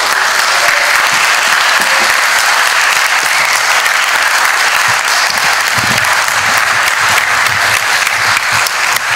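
A roomful of people applauding steadily at full strength: a long ovation.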